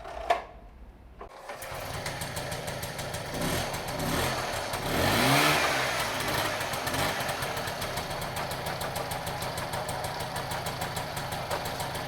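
Piaggio moped's small two-stroke engine test-started after repair: a sharp click, then the engine catches about a second and a half in. It is revved up and back down around the middle, then settles to a steady idle.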